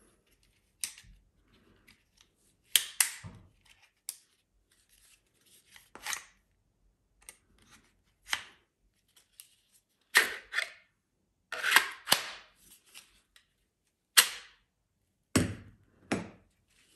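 Hard Kydex knife-sheath parts being handled: about a dozen sharp plastic clicks and knocks at uneven intervals, as the sheath pieces and mounts are snapped apart and together and the knives click in and out of their Kydex.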